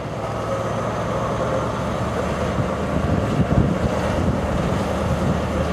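Class 43 HST power car's diesel engine running as the train pulls away, a steady drone.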